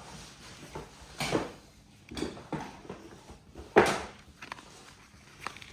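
A few separate knocks and clacks of hard objects being handled and set down while a boxed keyboard is unpacked, the loudest just before the four-second mark.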